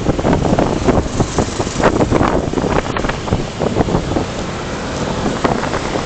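Heavy wind buffeting on the microphone of a moving motorcycle, with rough, gusty swells.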